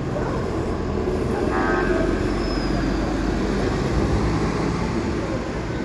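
Downtown rush-hour traffic: a steady low rumble of engines and passing heavy vehicles, with a short horn toot about a second and a half in.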